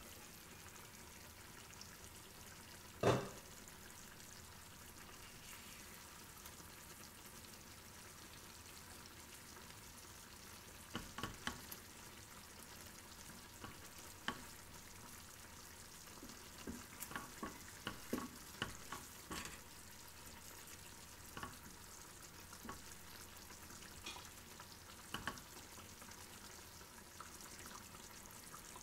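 Chicken and mushroom curry sizzling softly in a frying pan, with a sharp knock about three seconds in and a run of clicks and clinks later on as tongs turn the chicken pieces.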